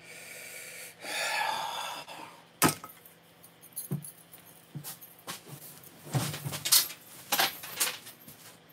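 A long breathy exhale from a man about a second in, followed by a sharp click and scattered knocks and rustles as he gets up from the table, with the loudest cluster of knocks near the end.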